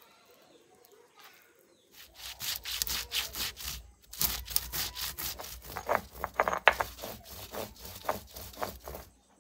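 Stone roller rubbed back and forth on a flat stone grinding slab (sil-batta), grinding spices. Quick rhythmic scraping strokes start about two seconds in, pause briefly about four seconds in, then run on.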